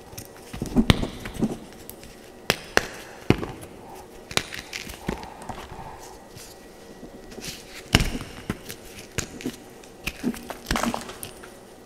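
Blocks of blue-dyed gym chalk crushed and crumbled between fingers. Irregular sharp crunching snaps alternate with softer crumbling, and the loudest snaps come about a second in and about eight seconds in.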